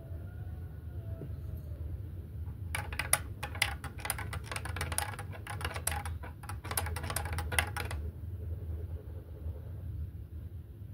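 Metal teaspoon clinking against the inside of a glass mug while stirring: a quick run of light clinks starting about three seconds in and stopping about five seconds later, over a steady low hum.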